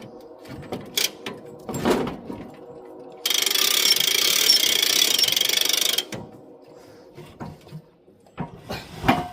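Knocks and clanks from metal parts being handled, with a loud, fast mechanical rattle like a ratchet lasting about three seconds in the middle.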